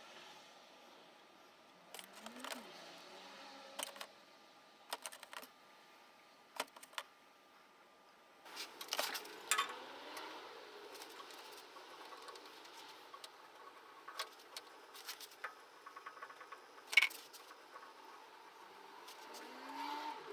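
Steel levelling bolts and nuts being handled and fitted, making scattered metallic clinks and clicks at irregular intervals, with a small cluster about nine seconds in and the sharpest click late on.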